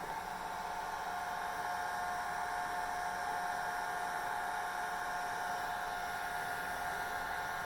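Hair dryer running steadily: a constant blowing hiss with an even motor whine.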